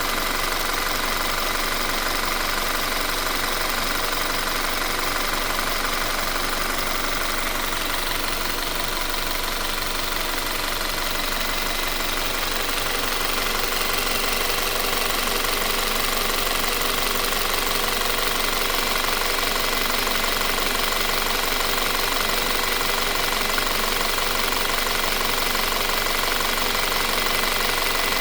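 2017 Audi Q5 engine running steadily at idle, with a steady mechanical noise from the engine that the owner suspects may be the timing chain.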